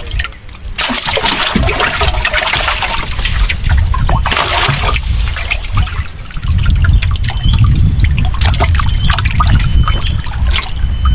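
Water sloshing and trickling, with many small clicks and a heavy low rumble from about six seconds in.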